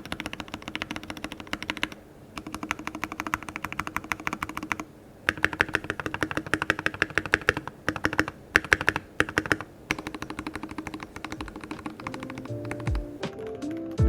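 Fast typing on a mechanical keyboard with JWK Lavender linear switches, mounted on a stainless steel plate in a foamed Keydous NJ68. The keystrokes come in quick runs with brief pauses. Music comes in near the end.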